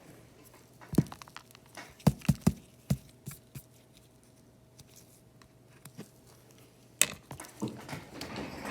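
Cracked screen glass being picked and scraped off an iPad mini 5's frame with a hand tool: sharp crackles and crunches of glass shards, one about a second in, a quick run of them around two to three seconds, another near seven seconds, then a stretch of scraping near the end.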